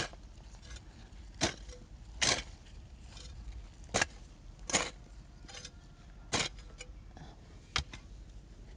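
A series of short, sharp knocks, about nine at uneven intervals, from soil being dug and firmed around transplanted seedlings.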